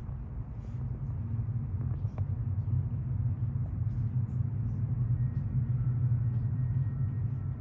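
Ginger tabby cat purring steadily close by, a low continuous rumble.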